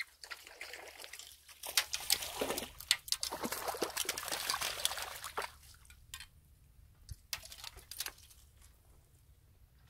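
A hooked crucian carp splashing at the water's surface as it is played and lifted out on a long pole rod, for about five seconds. A few light clicks and rustles follow as the fish is swung in and handled.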